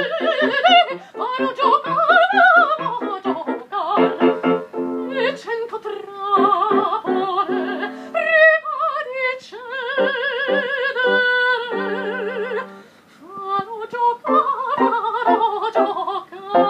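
Operatic soprano singing a bel canto aria, with wide vibrato on held high notes, over piano accompaniment. The singing breaks off briefly about thirteen seconds in, then resumes.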